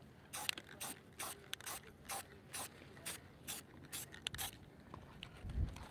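Aerosol spray-paint can hissing in many short bursts, two to three a second, as teal paint is dusted through a stencil. A low rumble comes near the end.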